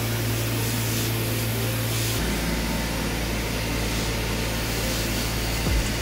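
Pre-spray wand hissing steadily as it mists cleaning solution onto carpet, over a steady machine hum that drops lower about two seconds in.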